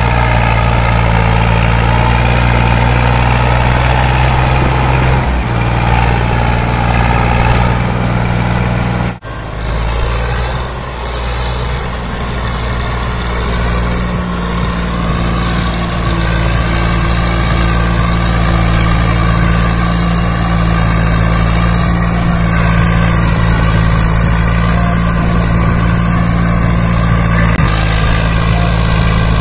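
Tractor diesel engines pulling hard under heavy load, hauling a loaded sand trolley through soft sand with the front wheels lifting. First a Sonalika DI 745 III, then after an abrupt cut about nine seconds in a Swaraj 744 FE, each running at a steady, loud note.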